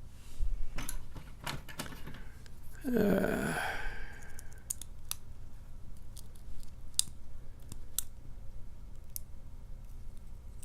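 Scattered light clicks and taps of small metal lock parts and tools as a picked padlock is taken apart by hand, with one louder brief rasping sound about three seconds in.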